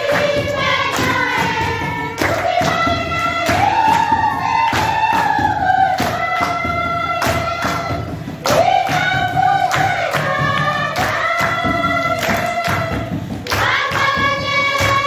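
A group of women and children singing together without instruments, clapping their hands to a steady beat of about two claps a second.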